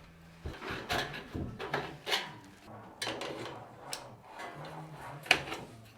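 Steel ceiling sheet and trim pieces being handled and worked, a string of irregular scrapes and clatters with a sharp knock near the end.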